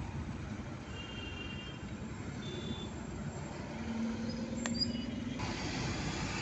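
Steady road and engine rumble heard from inside a moving car in traffic, with a few short high-pitched beeps in the first half, a low steady hum and a sharp click a little past the middle. About five seconds in the noise abruptly turns brighter and hissier.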